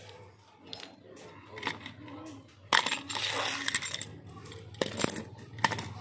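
Sharp metallic clicks and clinks from a brass padlock and its keys being handled on a concrete floor, the loudest about three seconds in, followed by a second of rustling.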